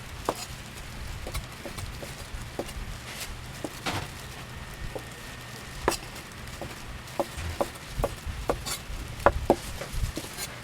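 Knife chopping sundae (Korean blood sausage) on a wooden cutting board: irregular sharp knocks, a few each second, coming in quicker clusters near the end.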